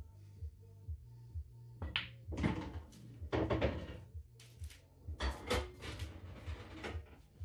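Background music with a steady low beat, with a few knocks and clatters about two, three and five seconds in.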